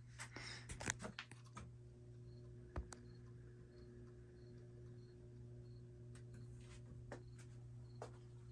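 Faint steady low hum from the Crest 1000 Series spinner ceiling fan's motor running, with a cluster of small clicks and rustles in the first second and a half, a sharp click about three seconds in, and a few more clicks near the end.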